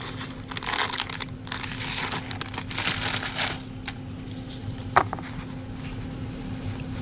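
Wax-paper wrapper of a 1990 Score football card pack being torn open and crinkled, rustling for about the first three and a half seconds. A single sharp click about five seconds in.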